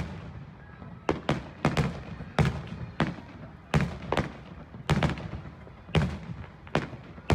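Aerial firework shells bursting overhead: about a dozen sharp bangs at uneven intervals, sometimes two in quick succession, each trailing off in a short low echo.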